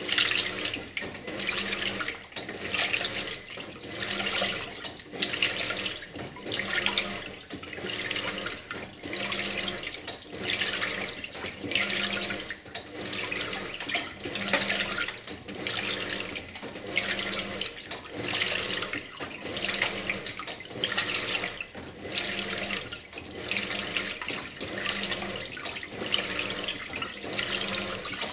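2001 Simpson Esprit 550 top-load washer agitating a load in water. The water sloshes in a surge about once a second as the agitator strokes back and forth, over a steady low hum from the drive.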